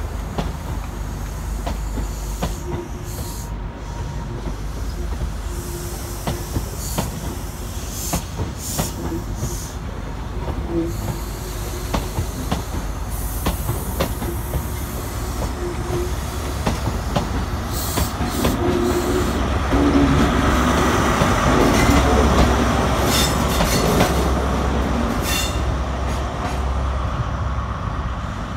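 Class 43 HST diesel train pulling out, its coaches rolling past with wheels clicking over rail joints and pointwork above a steady low rumble. It grows to its loudest about twenty seconds in as the rear power car's diesel engine goes by, then fades as it draws away.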